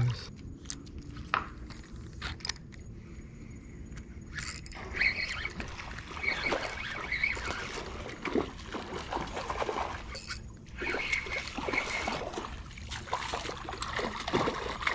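Water sloshing and trickling against a small canoe-style boat, with scattered small knocks and clicks. It is sparse at first, then from about a third of the way in it turns busier and splashier.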